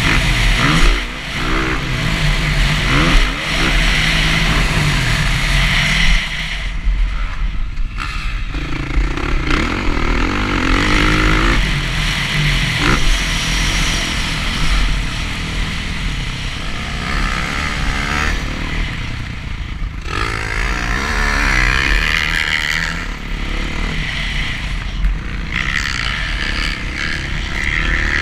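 Dirt bike engine heard from the rider's onboard camera, revving up and easing off again and again as the bike accelerates, shifts and slows through the track's turns.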